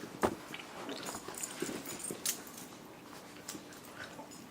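Baby's faint whimpering and mouth sounds while being fed a spoonful of cereal, with a few light clicks of the spoon, the sharpest just after the start.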